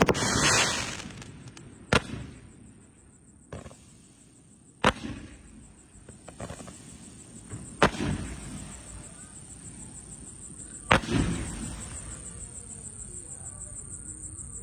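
A 2-inch, 666-shot fireworks cake firing single shots: about six sharp bangs spaced one to three seconds apart, each trailing off in a fading crackle.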